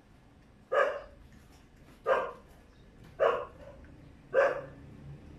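A dog barking four times, about once a second, each bark short and sharp.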